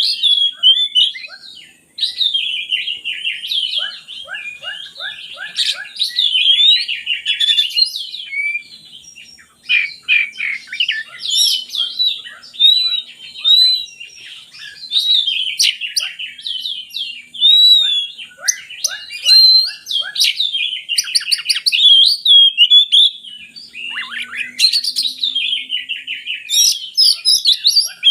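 Oriental magpie-robin (kacer) singing hard: a long, varied run of whistles, rapid trills and chattering phrases packed with imitated material, broken by brief pauses.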